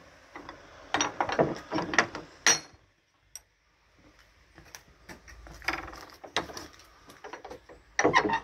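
Wooden gate creaking on its hinges and clattering, in a dense cluster of knocks and creaks about a second in, softer creaks in the middle, and another clatter near the end.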